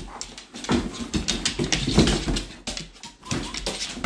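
A Great Pyrenees tearing at and shoving a cardboard vacuum-cleaner box across a wooden floor: repeated scrapes, knocks and rips of cardboard, mixed with noises from the dog itself.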